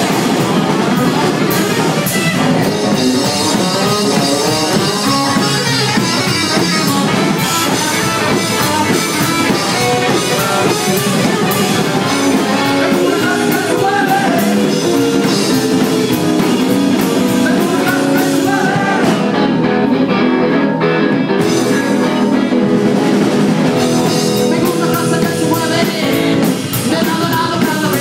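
Live rockabilly band playing: hollow-body electric guitar, upright bass and drum kit, with a man singing at times.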